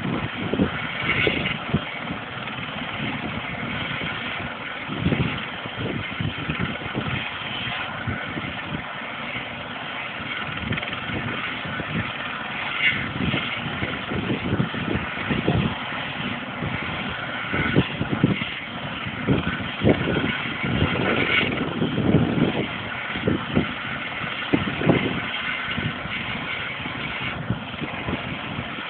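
Helicopter sitting on a ship's deck with its engine running at idle, a steady mechanical hum and whine. Irregular low gusts of wind buffet the microphone throughout.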